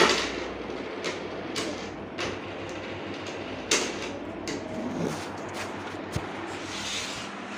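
A plastic shaker bottle being handled: a sharp snap at the start, then scattered plastic clicks and knocks from its flip-top cap and body.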